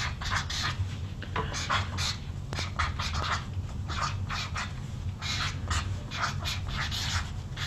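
Felt-tip marker writing on a sheet of paper: short, irregular scratchy strokes as words are lettered by hand.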